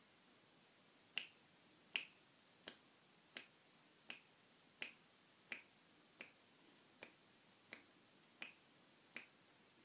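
Twelve finger snaps at a steady beat, about three every two seconds, starting about a second in: a count-in keeping time before the singing starts.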